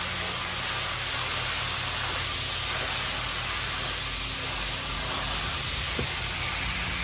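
Pressure-washer wand spraying a high-pressure water jet onto an area rug on a wet floor: a steady hiss over a faint low hum, with one brief click about six seconds in.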